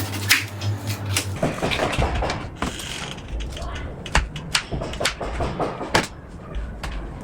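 Knocks and clicks of things being handled and set down in a kitchen, with cupboard or door sounds. A steady low hum stops about a second and a half in.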